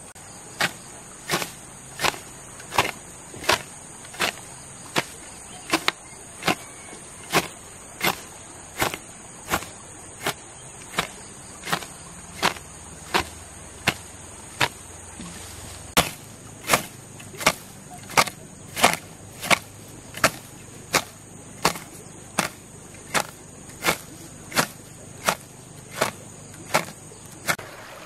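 Hoe blade chopping into grassy soil, striking over and over at an even pace of about four blows every three seconds. A steady high insect trill runs behind it.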